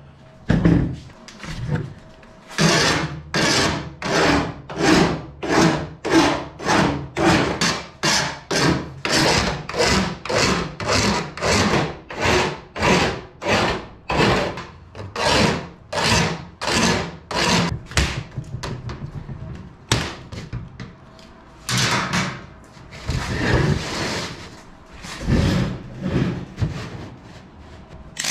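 Hand file rasping back and forth on aluminum, deburring the edges of the wing spar's lightening holes in steady strokes of about two a second, then slower, more widely spaced strokes in the last third.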